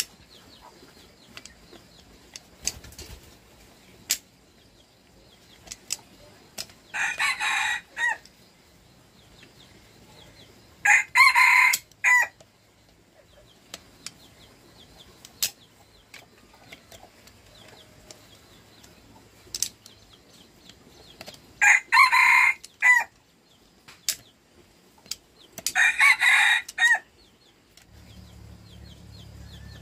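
Rooster crowing four times, each crow about a second long, with scattered sharp clicks between the crows. A low steady hum starts near the end.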